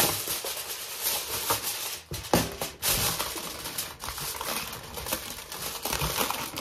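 Aluminium foil being pulled off its roll and crinkling, with a run of dry crackles and a few sharper snaps.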